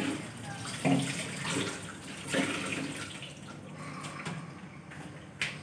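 Kitchen tap running into a stainless-steel sink as turmeric-stained hands are rinsed under it, with a few light knocks.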